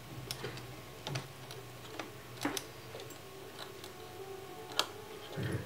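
Small irregular clicks and taps of a tiny screw and metal parts being handled and fitted inside a 2006 Mac Pro 1,1's case while a Wi-Fi card is screwed down, over a faint steady low hum.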